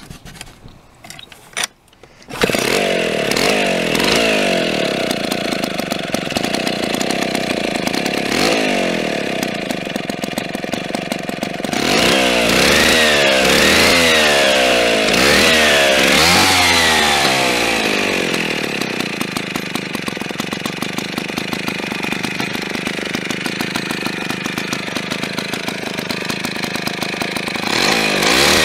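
Vintage IEL DD gear-drive chainsaw's single-cylinder two-stroke engine (85.7 cc) catches about two seconds in and runs steadily. Its throttle is revved up and down several times in the middle and again near the end.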